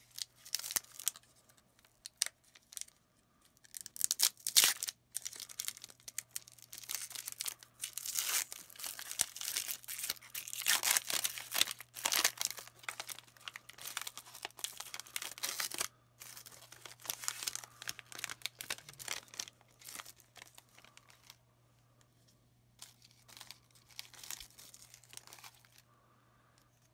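Foil wrapper of a Pokémon trading card booster pack being torn open and crinkled, a dense run of sharp rustles and tears that thins out to faint rustling about twenty seconds in. A steady low hum underneath.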